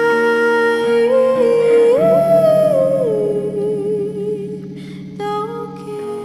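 Female singer holding long notes over sustained electric guitar chords. The voice steps up about two seconds in, wavers, and falls back down a second later.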